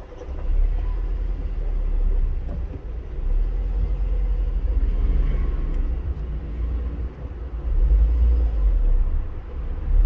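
Honda Fit's four-cylinder engine at a rough idle, heard from inside the cabin as a low, uneven rumble that swells and drops. The mechanic traced the noise to a broken AC compressor bearing and a loose, noisy drive belt tensioner.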